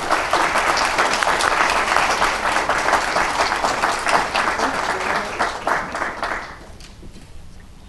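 Audience applauding, a dense patter of many hands clapping that fades away about six and a half seconds in.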